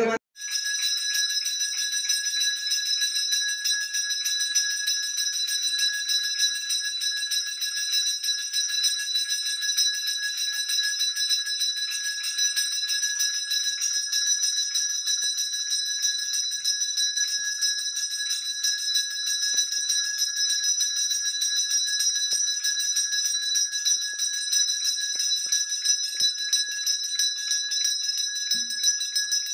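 Temple bell rung without a pause, a steady high metallic ringing.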